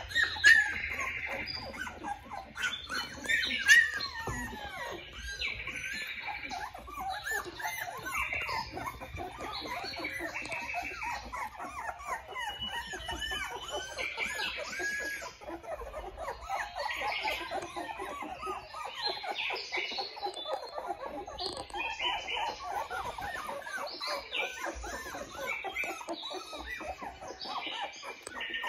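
A litter of Australian Shepherd puppies whining and squeaking together, many short rising-and-falling cries overlapping throughout, with a couple of louder yelps in the first few seconds.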